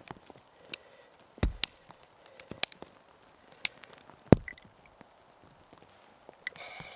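Pieces of fatwood knocking and cracking against each other and the ground as they are cut and handled: a handful of sharp, irregular wooden knocks, two of them heavier thuds.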